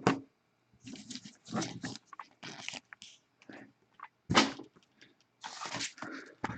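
Irregular rustling, scraping and handling noises from a mail package being picked up and opened, in short bursts with the loudest near the start and about four seconds in.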